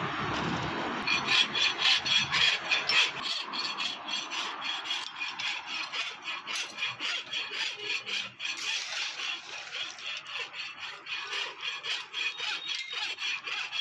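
A hand file rasping back and forth on a steel tool blade in quick, even strokes, several a second, starting about a second in after a steady hiss dies away.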